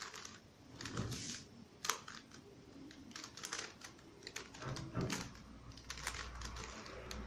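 A Rubik's cube being twisted by hand: irregular plastic clicks and rattles as its layers are turned through a move sequence.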